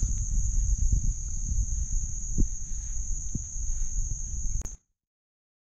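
Insects trilling in one steady, unbroken high-pitched note over a low rumble, with a couple of soft thumps; everything cuts off suddenly near the end.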